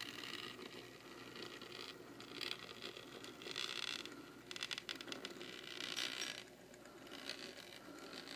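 ConCor/Rivarossi 4-6-2 Pacific N-scale model steam locomotive running on its track: a faint whir of the small motor and gearing with a light scraping, clicking patter of wheels on rail, swelling louder in stretches.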